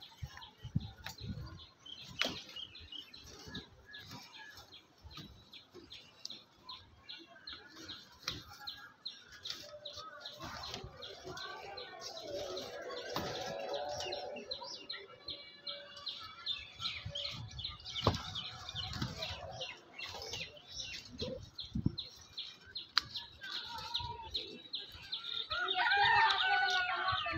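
Birds chirping in many short, quick calls, with a louder, longer bird call near the end and scattered low bumps.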